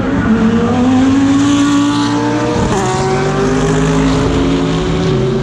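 GT3 race car engines accelerating, their pitch climbing steadily with sudden drops at upshifts about a quarter-second and about two and a half seconds in. More than one car is heard at once.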